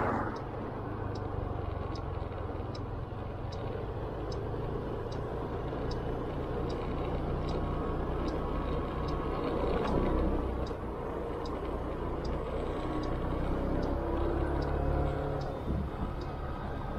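Motorcycle engine running under way, mixed with wind and road noise, with a faint regular tick a little under a second apart. It swells in loudness about ten seconds in.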